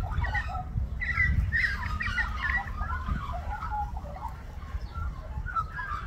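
Australian magpie warbling: a run of quick, gliding, broken notes that is fullest in the first half, over a low rumble.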